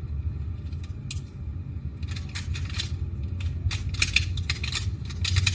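Plastic Rubik's cube being turned by hand: quick clusters of small clicks and clacks, starting about two seconds in, over a steady low hum.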